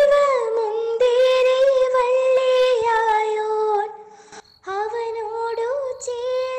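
A high solo voice singing a slow hymn to Jesus in long held notes, with a brief pause about four seconds in.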